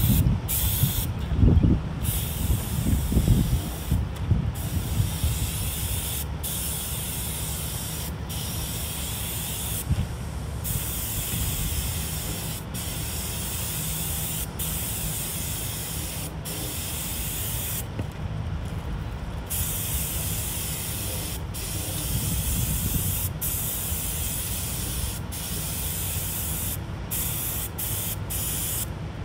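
Compressed-air paint spray gun hissing in long passes, cutting off briefly again and again as the trigger is let go. Wind gusts rumble on the microphone, strongest in the first few seconds.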